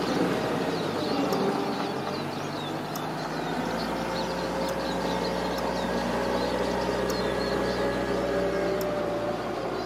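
Steady mechanical hum of engine or traffic noise, with small birds chirping briefly and repeatedly above it.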